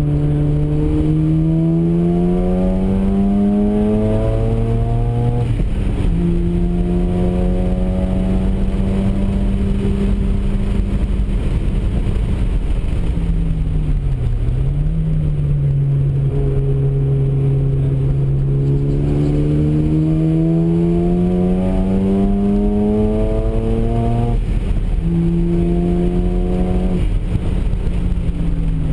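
Mazda RX-7's two-rotor rotary engine heard from inside the cabin, pulling hard on track. Its pitch climbs under acceleration and drops sharply at an upshift about five seconds in. It holds steady, dips briefly around the middle and climbs again, with further shifts near the end.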